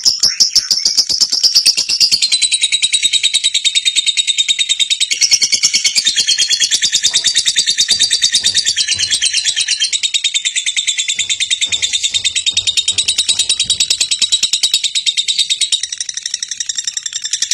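Lovebird chattering in one long, fast, unbroken run of high chirps, steady in loudness throughout.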